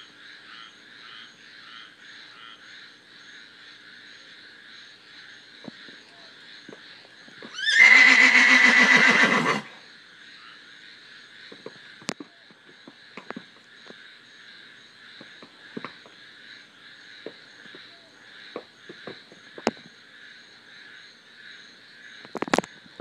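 A mare whinnying once, loud and shrill, for about two seconds a third of the way in: a separation call for her herd mates.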